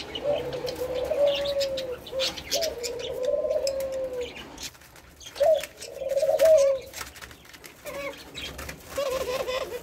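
Male doves cooing: about five drawn-out coos, each roughly a second long, one after another, with a short pause just before the middle.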